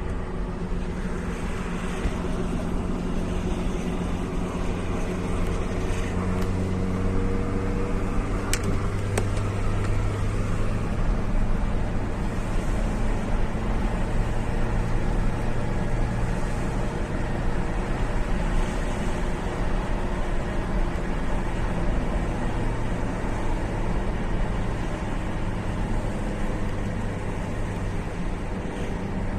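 2006 Volvo S40 1.8i's four-cylinder petrol engine running steadily under load going uphill, with the rattle that appears under load. A swirl flap delete on the intake manifold has not cured it.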